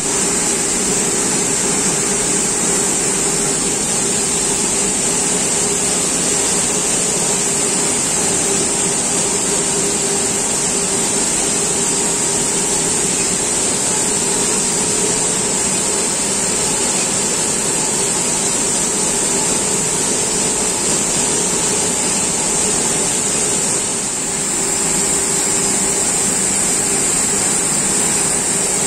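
Continuous induction bright-annealing machine for stainless steel flexible hose running: a steady industrial drone with a strong high hiss and a steady mid tone, easing briefly once late on.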